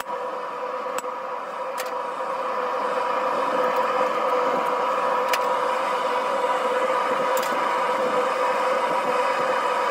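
Propane forge burner running: a steady rushing noise with a hum, growing louder over the first few seconds and then holding. A few light metal clinks sound over it.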